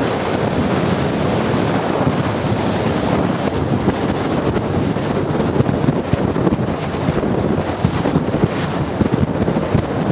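Boat running at high speed on open water: wind buffeting the microphone and water rushing past the hull over the run of the outboard engines. A thin high-pitched whine that wavers in pitch comes in about two and a half seconds in.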